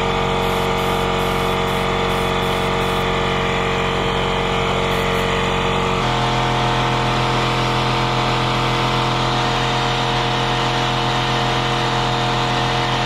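Handheld hair dryer blowing steadily, heat-setting freshly airbrushed paint on a fishing lure. Its tone shifts slightly about six seconds in.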